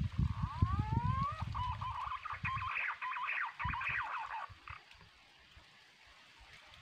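A bird calls with a few rising whistled glides, then a quick run of sharp chattering notes that fades out about four and a half seconds in. Low rumbling thumps sound underneath during the first three seconds.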